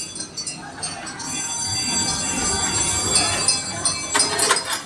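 Electric kiddie ride train running along its steel rail track, the wheels giving a steady rumble with a thin high whine, then a run of sharp clicks as it passes close near the end.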